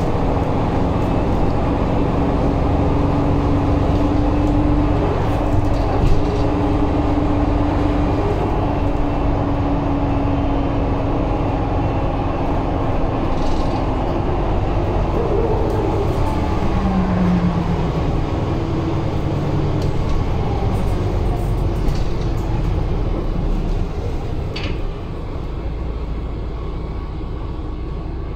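Ride noise inside a Mercedes-Benz Conecto G articulated city bus under way: a steady rumble of engine, drivetrain and road noise with a humming whine over it. The noise drops off somewhat about four seconds before the end.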